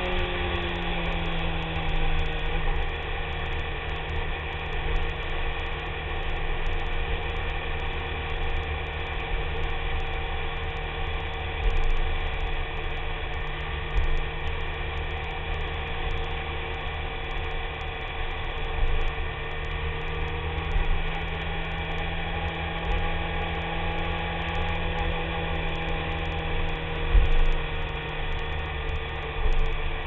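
BMW K1300S motorcycle's inline-four engine running at a steady cruise in a road tunnel, its note holding an even pitch, over a low rumble of wind and road.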